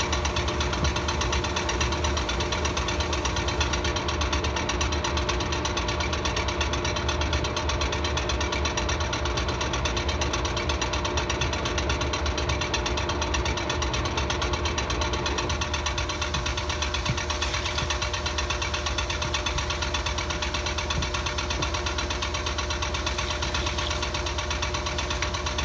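Top-loading impeller washing machine spinning its load, a steady mechanical drone with a strong low hum. The pitch of some of its tones shifts slightly about two-thirds of the way through.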